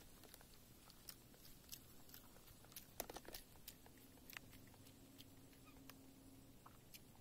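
Faint chewing and crunching of someone eating, heard as scattered small clicks with a brief cluster about three seconds in.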